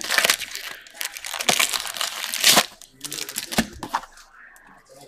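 Foil wrapper of a football trading-card pack crinkling and tearing as it is ripped open by hand, with a couple of sharp clicks as the cards are handled.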